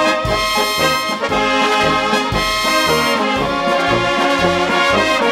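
Bohemian-style brass band music: brass instruments play a full melody over a steady, evenly pulsed bass.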